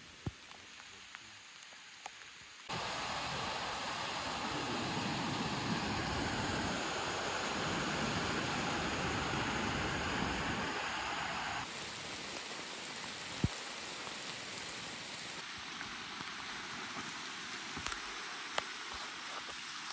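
Rushing water of a rocky mountain river cascading through a gorge, a steady full roar that cuts in abruptly a few seconds in and stops abruptly about halfway through. Before it there is only a faint hiss, and after it a softer steady hiss with a few faint taps.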